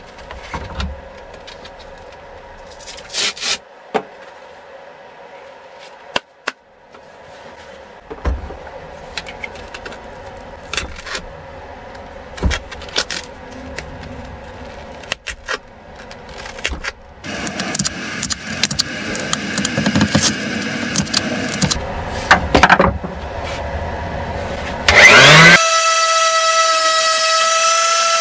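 Clicks, taps and scratching as a new hook-and-loop sanding disc is fitted to a Ryobi random orbital sander. Near the end the sander's motor switches on, spins up with a quick rising whine and runs with a steady whine.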